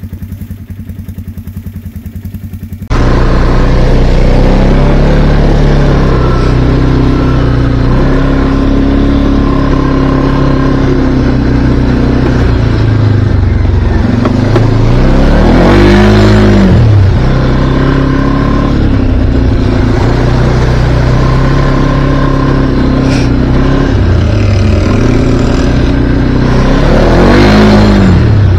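Can-Am Outlander ATV engine idling quietly, then, after a cut about three seconds in, running loud on the move, heard from on board. The engine revs up and back down twice, around halfway and near the end.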